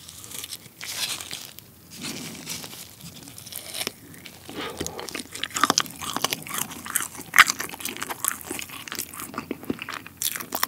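Close-miked chewing of a whole boiled potato from gamjatang: wet mouth sounds with many crisp crunches, growing denser about halfway through. The potato is slightly undercooked, as the eater finds.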